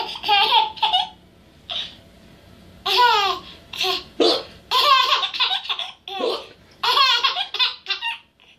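A young child laughing in repeated high-pitched bursts of giggles, with a pause of about two seconds after the first burst.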